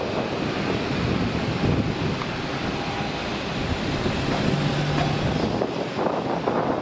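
Gulfstream business jet on final approach with gear down, its two rear-mounted turbofans making a steady jet noise, mixed with heavy wind buffeting on the microphone.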